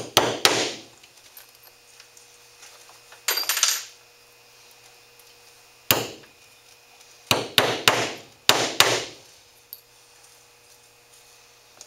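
Claw hammer tapping 6-penny nails into a plywood board through the edge of a stretched beaver hide, in short bursts of one to three sharp strikes spaced a second or two apart.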